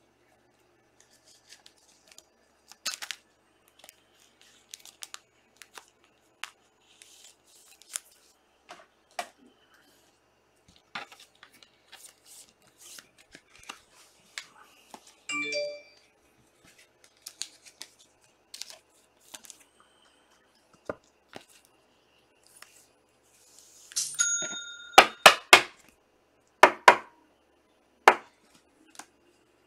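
Trading-card packs and box packaging being torn open and handled, with scattered crackles and clicks. A short chime-like tone sounds about halfway through and another just before the end, and a run of sharp clicks near the end is the loudest part.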